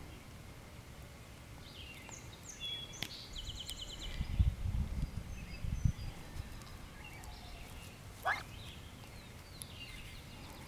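Young white domestic turkeys at close range: a few faint chirps and trills, and one short sliding peep about eight seconds in, over quiet outdoor background with a low rumble on the microphone around four to six seconds.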